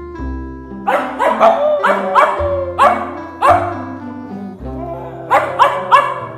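Pug barking: a run of about seven short, sharp barks, then three more in quick succession near the end, over background music.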